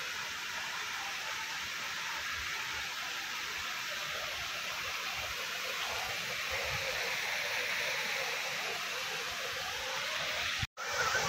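Steady rush of water falling at a dam waterfall, an even hiss with no let-up; it drops out for an instant near the end.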